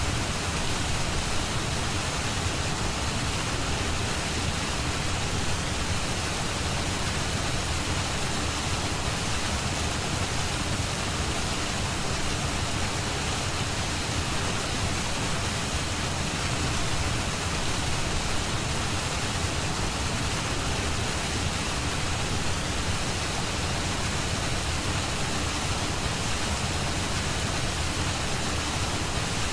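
A steady, even hiss of noise spread across all pitches, with no changes, beats or events: a noise bed of the kind laid under subliminal recordings.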